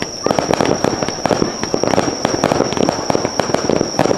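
Fireworks finale: a dense barrage of bursts and crackles, many bangs a second with no pause between them.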